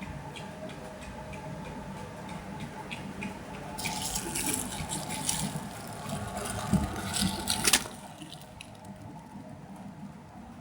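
Liquid spraying and splashing during cleaning of a motorcycle engine block. It starts about four seconds in and stops suddenly near eight seconds, over a low steady hum with light ticks.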